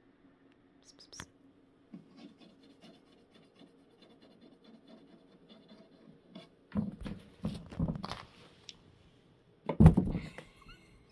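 A Bengal kitten scrabbling and scratching about inside a wooden cabinet: a string of faint ticks and scrapes, then louder bumps and scrapes against the panels, the loudest near the end.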